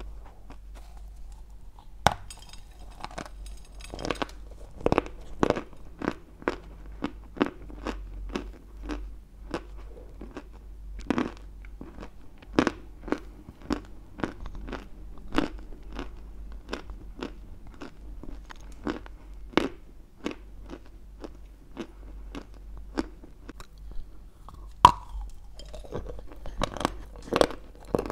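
Close-miked biting and chewing of a chunk of dry white Turkestan clay: a steady run of sharp, crisp crunches, about two a second, with a loud bite about two seconds in.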